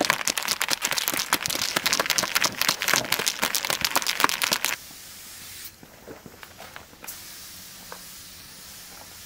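Aerosol spray-paint cans shaken hard, their mixing balls rattling in fast, dense clicks for about five seconds. Then it cuts to a quieter, steady hiss.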